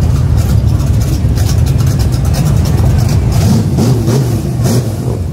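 Several big touring motorcycles riding slowly past in a line, their engines rumbling steadily at low speed.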